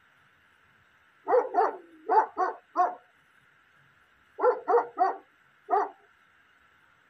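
A dog barking in two bouts: five barks starting about a second in, then, after a short pause, four more.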